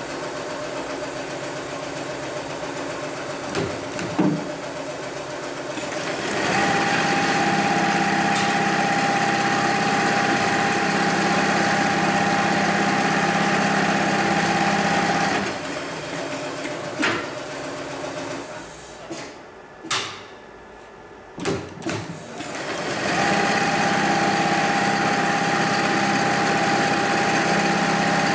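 Hightex 72600PLK programmable heavy-duty pattern sewing machine stitching thick sling webbing: it starts about six seconds in and runs at speed with a steady whine, stops after about nine seconds, and starts again near the end. A low hum and a few sharp clicks come before and between the runs.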